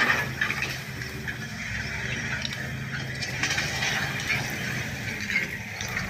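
Crawler earth-moving machinery working: a diesel engine running steadily under repeated high metallic squeals and scraping from the tracks and undercarriage, with a loud clatter right at the start.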